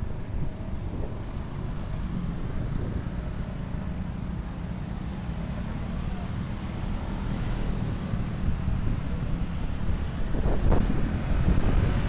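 Low, steady riding rumble from a Honda Vario 125 scooter moving slowly through traffic: wind on the microphone and road noise. It dips in the middle and grows louder near the end as the scooter gathers speed.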